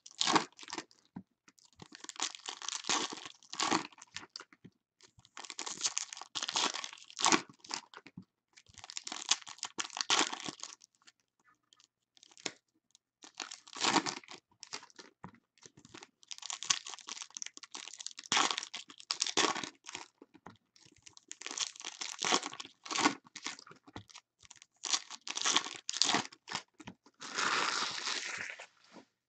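Wrappers of 2017 Bowman Chrome baseball card packs being torn open and crinkled by hand, in repeated crackling bursts a second or two long with short pauses between them.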